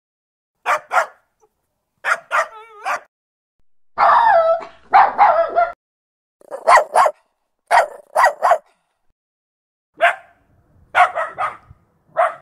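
Dog barking: short sharp barks, mostly in quick pairs, coming again and again with silent gaps between, with a brief wavering whine about two and a half seconds in and a longer run of barking near the middle.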